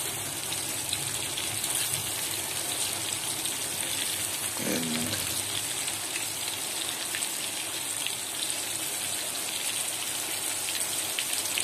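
Breaded chicken pieces deep-frying in hot mustard oil: a steady sizzle with fine crackling.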